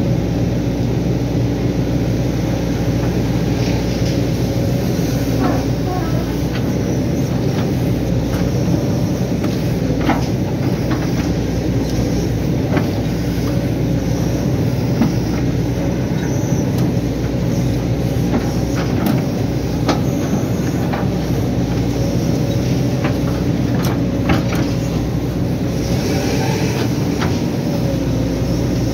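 Hitachi excavator's diesel engine running steadily under working load, heard from the operator's seat, with occasional sharp knocks and clanks from the boom and bucket as it digs and dumps mud.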